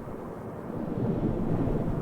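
Steady rain ambience, a low rushing noise that swells louder for about a second midway through.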